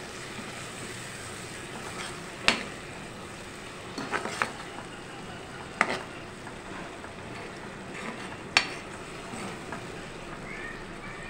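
Onion-tomato masala sizzling steadily in oil and a little water in a nonstick wok while it is stirred with a metal spoon. The spoon clicks sharply against the pan about five times.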